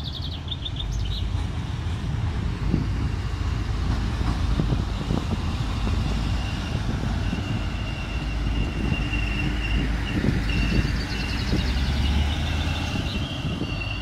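Regional passenger train running past at low speed, a steady low rumble with knocks of the wheels over the rail joints; a thin, steady high whine joins about halfway through.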